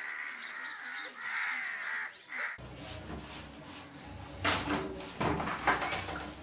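Crows cawing, a run of harsh overlapping calls that stops abruptly about two and a half seconds in. After that comes a low steady rumble of room tone with a few sharp knocks and clicks.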